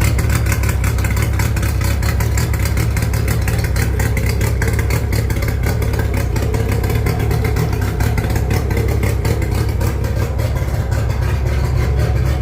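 1994 Mercury 60/45 jet two-stroke outboard engine running steadily at a constant speed, with an even, rapid pulse throughout.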